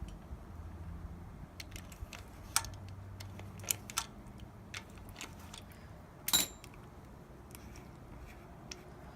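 Scattered light metal clicks and clinks of a socket wrench working the nuts on a tractor's oil filter housing, with one louder metal clank about six seconds in. A low wind rumble on the microphone sits under the first few seconds.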